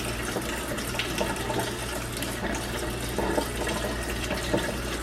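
Kitchen tap running steadily into a sink while raw chicken is rinsed under it.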